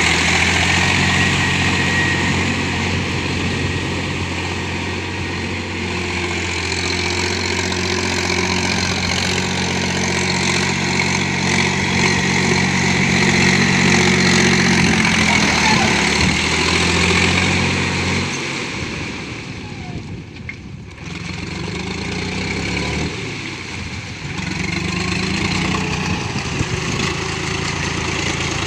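Mahindra 265 tractor's diesel engine running steadily. Its note drops and the sound thins out about two-thirds of the way through, then picks up again near the end.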